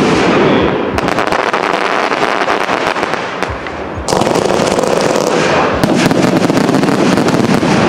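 Fireworks finale barrage: dense, rapid crackling and bangs from aerial shells and crackling stars. A sudden louder wave of bangs and crackle comes in about four seconds in.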